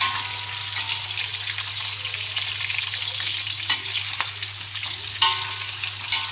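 Meatballs sizzling as they fry in oil in a steel wok, with a metal spatula clinking against the wok a few times; the loudest clink comes about five seconds in and rings briefly.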